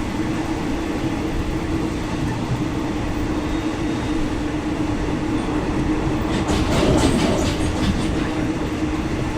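A moving passenger train heard from aboard a second-class fan-cooled coach: a steady rolling rumble with a constant hum. About six and a half seconds in comes a quick run of sharp clacks as the wheels pass over rail joints, the loudest moment.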